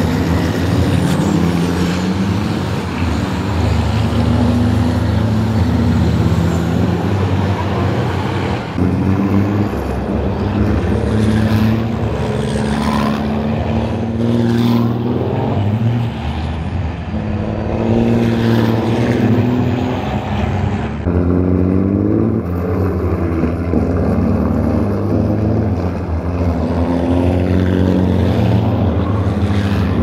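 Turbodiesel racing truck engines running hard, their pitch repeatedly climbing and dropping as they accelerate and shift gears. The sound changes abruptly twice as the shot changes.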